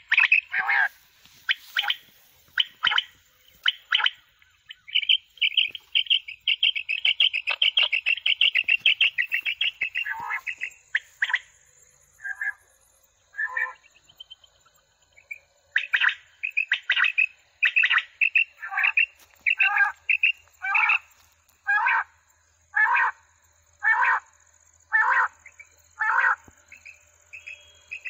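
Recorded quail calls played from a battery-powered electronic quail caller: a fast run of rattling notes, then short sharp calls repeated about once a second from around the middle on.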